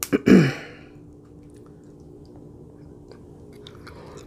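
A short falling hum of the voice with a click or two at the start, then faint scattered clicks and mouth sounds of mussels being picked from the shell and eaten, over a low steady hum.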